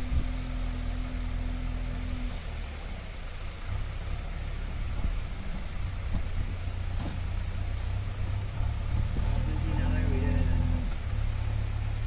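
JCB backhoe loader's diesel engine running with a steady low drone as the machine drives across the ground, the engine note stepping up a little about four seconds in and growing somewhat louder toward the end.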